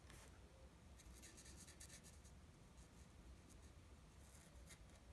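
Faint scratching of a Stampin' Blends alcohol marker's tip on paper while colouring in a small stamped image, in short spells of strokes with quiet between.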